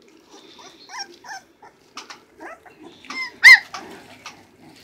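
Young puppies squeaking and yipping in a litter: a string of short, high cries, with one loud yelp about three and a half seconds in.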